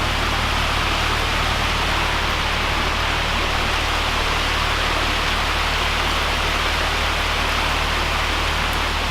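Steady rain falling, an even hiss with a steady low hum underneath.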